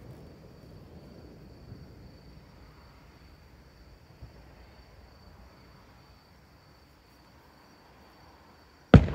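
Insects trilling steadily at a high pitch in a quiet night, under a faint fading low rumble. Near the end an aerial firework shell bursts with a sudden loud bang that rumbles on afterwards.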